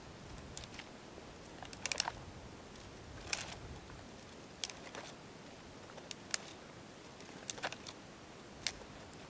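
Small dry twigs snapped by hand: a series of short, sharp cracks at irregular intervals, some in quick pairs.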